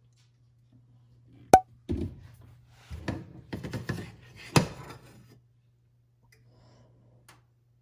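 Kitchen handling sounds as oil goes into a hot pan: a sharp click with a brief ring, then a string of taps and knocks from a bottle and cookware, over a steady low hum.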